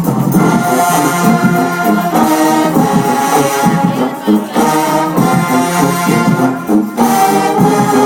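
High school marching band brass section, trombones and trumpets, playing loud sustained chords that change every second or so.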